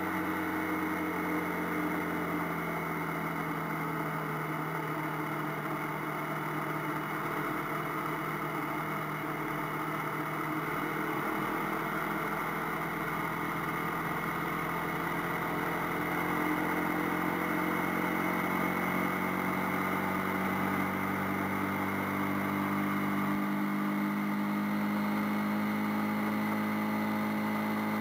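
AKT TT 250 Adventour motorcycle's single-cylinder engine running under way at a steady cruise, with a steady hiss of wind and road noise. Its pitch climbs slowly over the last third as the bike picks up speed.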